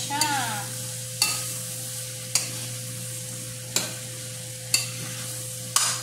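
Metal spoon stirring bitter melon and egg in a stainless steel frying pan over a steady sizzle, with about five sharp clinks of the spoon against the pan. A steady low hum runs underneath.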